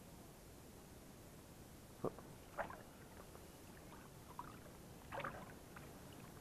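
Quiet water sloshing and lapping as a person wades in shallow water, with a few short, faint splashy sounds about two seconds in and again near the end.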